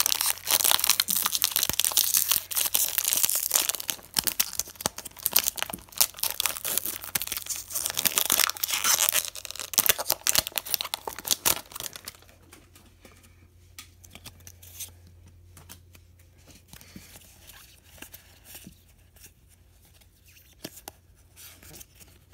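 Foil wrapper of a Pokémon Evolutions booster pack being torn open and crinkled: loud, dense crackling for roughly the first twelve seconds. After that it drops to soft, scattered clicks and rustles of the trading cards being handled.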